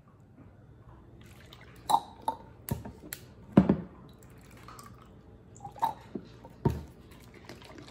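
Decaf coffee poured and dripping from a measuring dispenser bottle over ice in a plastic tumbler, with several sharp clicks and knocks of bottle and ice against the cup, the loudest a dull knock in the middle.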